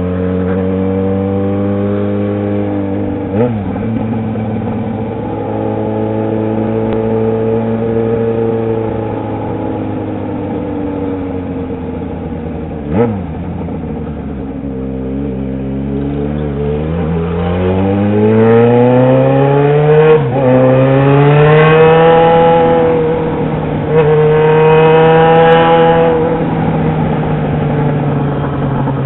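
Yamaha XJ6's inline-four engine running loud under the rider: steady cruising with a few brief dips in revs, easing off around the middle, then revving up hard in the second half, with the revs dropping sharply twice as it shifts up.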